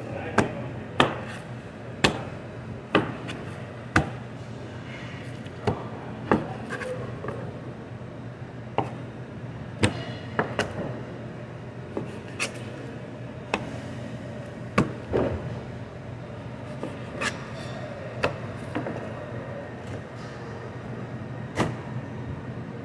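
Knife cutting and trimming steaks on a plastic cutting board, with sharp irregular knocks as the blade and meat strike the board, about one a second at first and then further apart. A steady low hum runs underneath.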